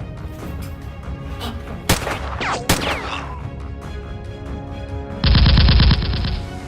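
Gunfire sound effects over background music: two single shots about two seconds in, each trailing off in a falling whine, then a loud burst of rapid automatic fire lasting under a second near the end.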